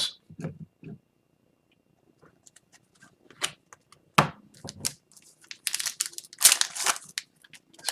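A trading-card pack wrapper being torn open and crinkled, after a few light clicks of cards being handled. The crinkling comes in short bursts over the last couple of seconds.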